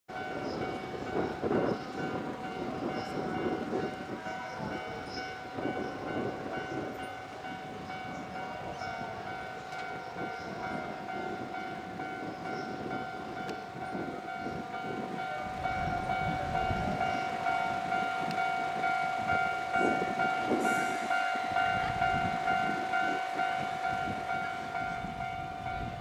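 Japanese level-crossing warning bell ringing in continuous, evenly repeated dings. From about halfway a Keio 9000-series electric train starts to pull away, adding a low rumble beneath the bell.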